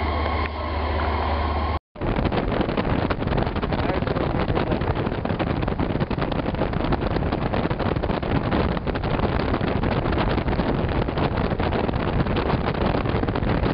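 Wind buffeting the microphone and road noise from a moving vehicle, a continuous rush that starts abruptly about two seconds in, after a steady low hum.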